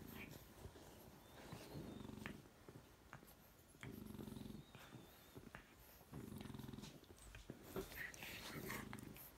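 Faint, low rumbling from French bulldogs, coming in short spells of under a second about every two seconds, with scattered small clicks and scuffles as the puppies play fight.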